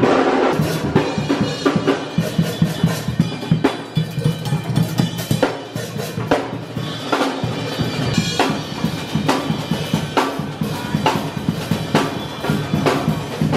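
Busker playing a full drum kit: fast, busy snare, bass drum and cymbal hits.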